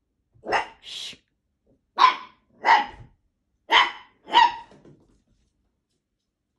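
Italian greyhound barking: six short barks in three pairs, then it stops.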